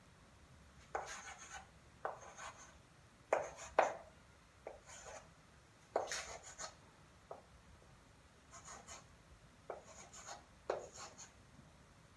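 Chalk writing a long number on a blackboard: a run of short, uneven strokes with brief pauses between them, one digit after another, about ten in all.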